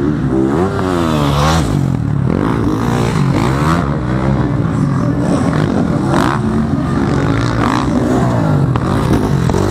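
Several motocross bikes' engines revving out of sight on the track, their pitch rising and falling again and again under throttle, overlapping.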